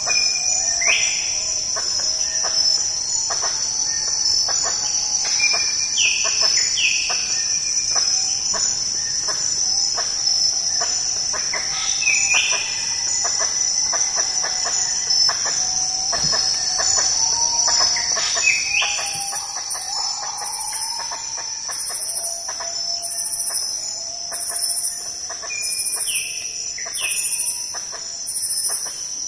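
Tropical rainforest ambience: a steady high-pitched insect drone, with a bird call repeating every five or six seconds. From about two-thirds of the way in, a high insect pulsing comes in about once a second.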